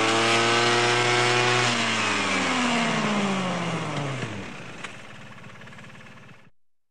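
An engine revving, its pitch climbing and then falling away as if driving past. It dies down over the last few seconds and cuts off shortly before the end.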